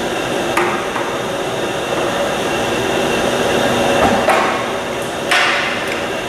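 Monarch 32 NN engine lathe (46-inch swing, 30 hp main motor) running with a steady mechanical hum, broken by three sharp metallic clunks as the headstock gear levers are shifted.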